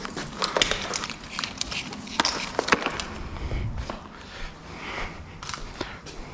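Clicks, knocks and light clatter of parts being handled and worked loose by hand on a BMW S50B32 inline-six engine. The sharpest knocks come in the first half.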